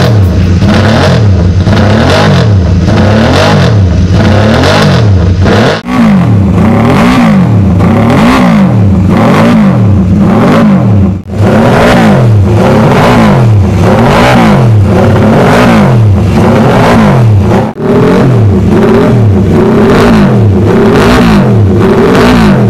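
1972 MV Agusta 500cc three-cylinder racing motorcycle engine being revved hard over and over, its pitch rising and falling about once a second, very loud. The throttle drops off briefly three times.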